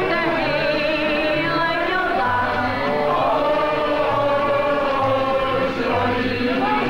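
Recorded song playing, with several voices singing together over a stepping bass line.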